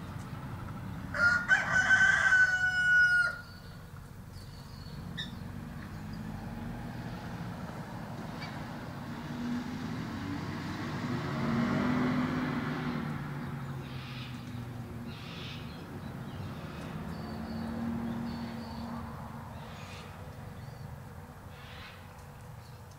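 Rooster crowing once, about a second in: a single drawn-out cock-a-doodle-doo lasting about two seconds. A low rumble then swells and fades in the background.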